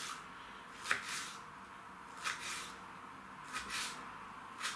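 Kitchen knife slicing a red bell pepper into thin strips on a plastic cutting board: crisp cuts with the blade tapping the board, coming in pairs every second or so, the first about a second in the loudest.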